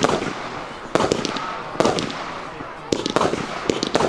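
Consumer firework compound (86-shot cake) firing a sequence of shots, about one a second and a few in quicker succession near the end, each sharp report followed by a trailing hiss and crackle.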